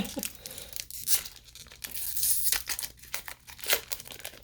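Foil Pokémon booster pack wrapper crinkling and being torn open, in short uneven crackles.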